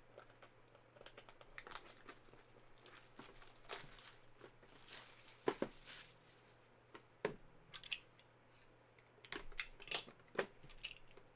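A small cardboard box and its packaging being opened by hand: crinkling and tearing, with scattered light clicks and taps.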